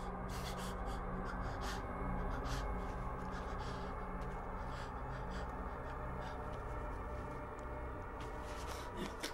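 A low, steady suspense-score drone, with scattered faint scratches and ticks of a machete blade grating against a plaster wall.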